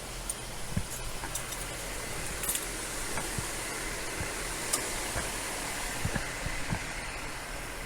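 Steady low hum and hiss of a nearby idling vehicle, with scattered small clicks and taps.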